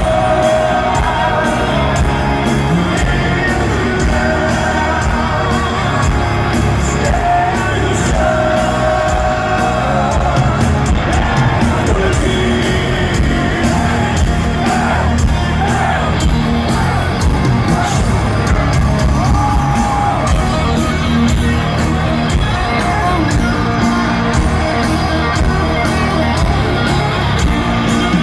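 Heavy metal band playing live through a stadium sound system, with a singer's voice over the band.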